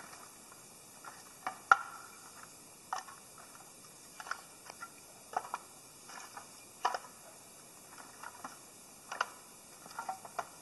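Pieces of firewood knocking and clunking together as they are handled and stacked: about a dozen irregular wooden knocks, the loudest about two seconds in.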